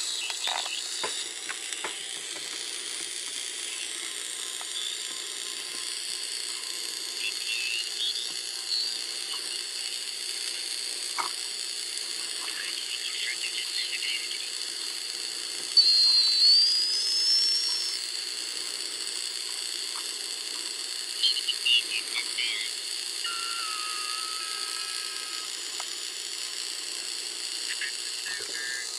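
Homebrew two-transistor regenerative receiver tuned to the 40-metre band playing through its speaker: steady shortwave static and hiss, with heterodyne whistles that slide in pitch as it is adjusted. The loudest is a rising whistle about halfway through, and a short steady tone follows a few seconds later.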